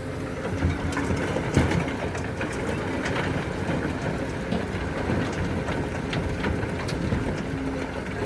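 Doosan crawler excavator's diesel engine running steadily while its bucket tips a load of soil and stones into a dump truck bed. The falling dirt patters and clatters.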